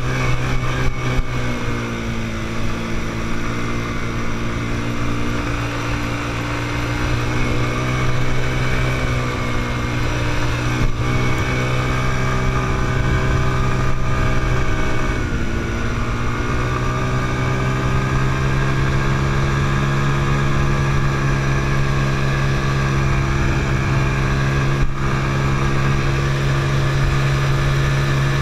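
Quad bike (ATV) engine running under way across sand, its pitch dipping once about halfway through and then climbing back. There are a few short knocks.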